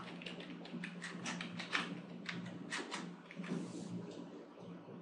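Typing on a computer keyboard: a quick, irregular run of faint key clicks that stops about three and a half seconds in, over a low steady hum.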